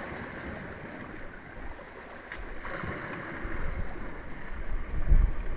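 Sea washing against shoreline rocks with wind rumbling on the microphone; the low rumble grows stronger in the second half.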